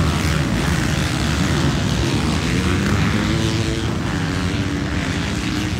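Motocross dirt-bike engines running hard as the bikes race around the track, a dense steady blare with one engine's pitch shifting up and down about three to four seconds in.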